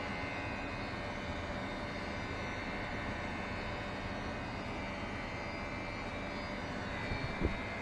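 Hitachi air conditioner compressor running with an abnormal noise: a steady hum with a thin high tone over it, and one short thud near the end.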